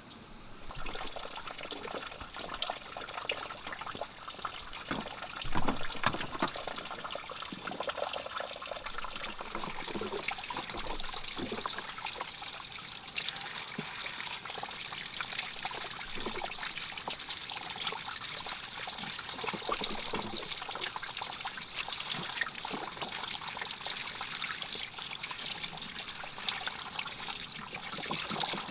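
Water pouring steadily from a bamboo pipe into a wooden trough and splashing as hands rinse greens in the stream. The sound is briefly louder about five and a half seconds in.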